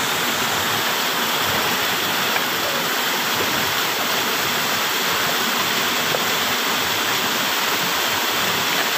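Small waterfall pouring into a rock pool: a steady rushing of falling water.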